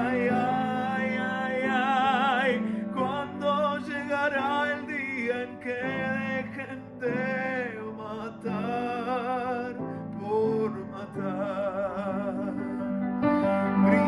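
Slow, sad ballad: a male singer holding long notes with a wide vibrato over instrumental accompaniment, without clear words.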